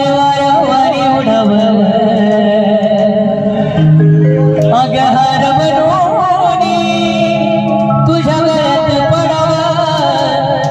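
Loud, amplified banjo-party band music: a lead melody with wavering pitch over held low notes.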